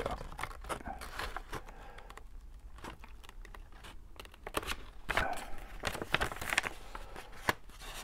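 Scissors snipping through paper envelope stock, short cuts mixed with paper rustling. There is a quieter stretch in the middle before the snipping picks up again.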